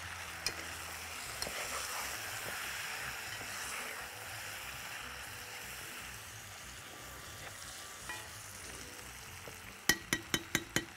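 Camel meat sizzling in a pot with a steady hiss as the water it has released boils off. Near the end, a quick run of sharp clicks, about five or six a second, as a spoon knocks against the pot while stirring.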